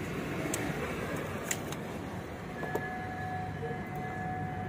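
Used engine oil draining in a steady stream from the car's sump into a drain pan. A few light clicks come from the loosened oil filter being unscrewed by hand, and a faint steady whine comes in a little past halfway.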